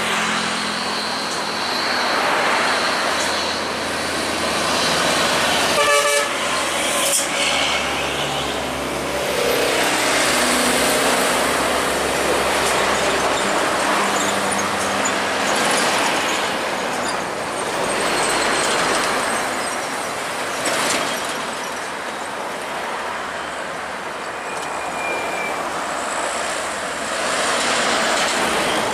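Road traffic of heavy trucks and a bus passing close by, their diesel engines running, with tyre noise. A short horn toot sounds about six seconds in.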